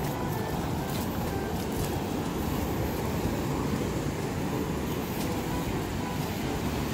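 Steady rumble of ocean surf breaking on a rocky reef, an even noise with no distinct single waves standing out.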